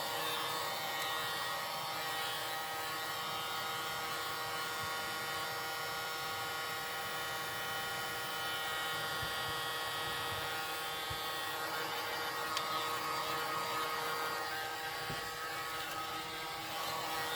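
Heat gun running steadily on its low setting: the even whine and hum of its fan motor over a rush of air.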